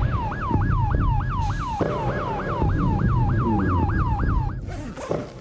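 Police car siren in its fast yelp setting: quick rising-and-falling wails, about four a second, over a low vehicle rumble. The siren stops shortly before the end.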